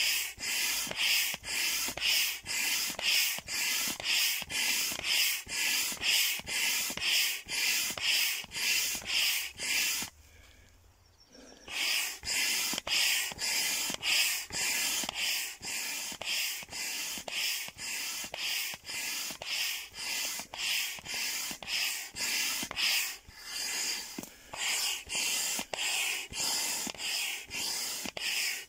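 Hand air pump inflating a large vinyl inflatable duck float: each stroke pushes a hiss of air through the hose, about two strokes a second. The pumping stops for about a second and a half about ten seconds in, then carries on.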